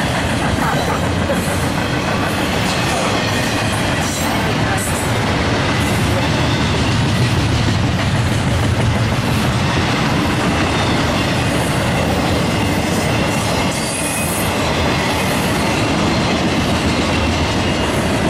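Double-stack intermodal container train's well cars rolling past: a steady, loud rumble of steel wheels on rail, with occasional clacks.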